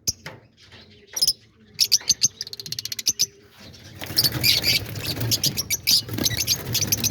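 Lovebirds chirping and shrieking in short, high calls, scattered at first and then a dense, busy chatter from about four seconds in. Under the calls, a rustling flurry that fits the birds flapping about in alarm as someone reaches in to get them.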